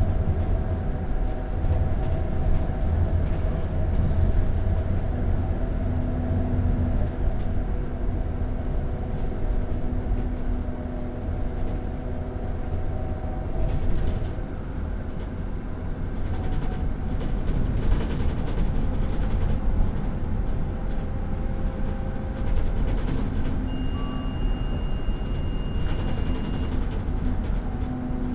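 Interior of a moving bus: a steady low engine rumble and road noise, with a few short rattles and clicks. A thin high tone is held for about three seconds near the end.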